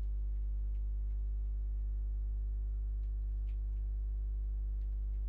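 Steady low electrical hum with a stack of overtones, unchanging in level, with a few faint ticks.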